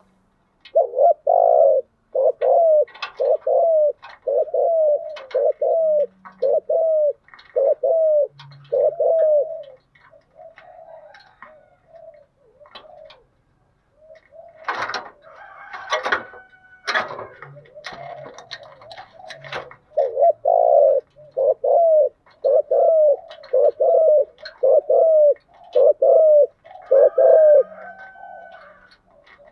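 Decoy spotted dove cooing in a quick run of short, even coos, about one every three-quarters of a second. Midway it stops for several seconds, during which a few sharp knocks and rustling noises are heard. Then the run of coos starts again.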